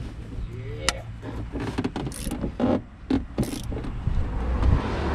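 Socket wrench working the seized top mounting nut of a 2007 Ford Mustang's worn rear shock absorber: scattered metallic clicks and clunks, with a sharp click about a second in, as the stuck bolt is forced.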